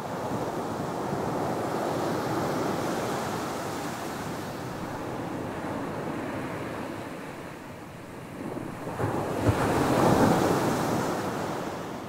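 Ocean shorebreak: small waves breaking on a sandy beach and washing up the sand, rising and falling in level. The biggest wave breaks about nine seconds in with a brief sharp hit, and its wash fades near the end.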